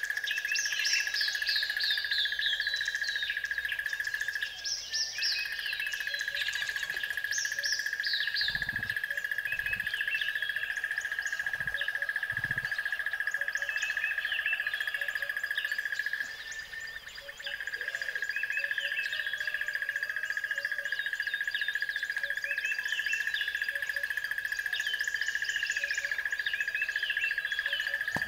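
Small birds chirping and singing in short, quick falling whistles, over a continuous steady high trill that breaks off briefly twice.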